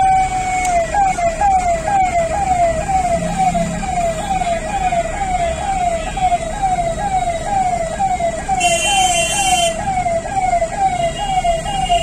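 Electronic siren switching from a long, slowly falling wail to a fast warbling yelp of about two cycles a second. About nine seconds in, a brief, harsher, higher-pitched blast cuts through it.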